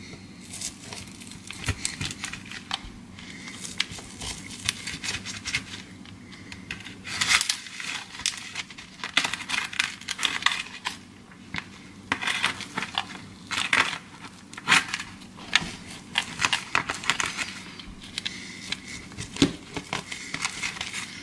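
Kitchen knife cutting a slice of pecan cheesecake in a disposable aluminium foil pie pan. Irregular scraping and crinkling come in short scratchy clusters as the blade saws through the crust and rubs the foil, over a low steady hum.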